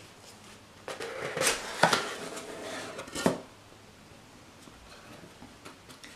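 A corrugated cardboard mailer box being opened: a handful of short scrapes and knocks with some rustling as the tuck-in lid is pulled free and lifted, all within the first three seconds or so.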